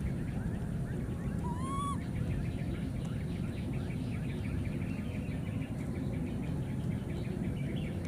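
A baby macaque gives one short, clear coo that rises in pitch, about one and a half seconds in. Underneath it run a steady low background noise and many faint, rapid chirps.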